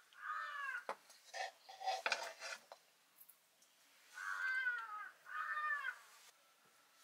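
A cat meowing three times, each meow a short arching call. Between the first and second meows come a few short light clinks, like dishes or utensils being handled.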